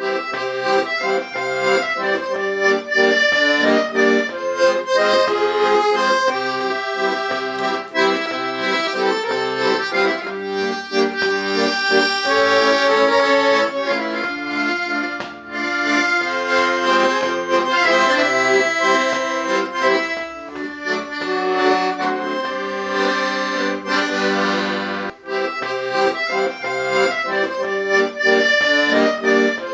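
Accordion playing a tune, a melody over sustained chords, as a sound test of the instrument. The playing breaks off briefly twice, about halfway through and again near the end.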